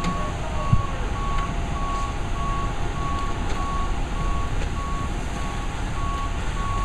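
Fire engine's electronic warning beeper sounding a steady series of single-tone beeps, a little under two a second, over the low rumble of the fire engines running. A single thump just under a second in.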